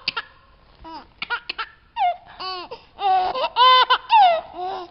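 A man laughing hard, a run of high-pitched bursts of laughter that rise and fall in pitch.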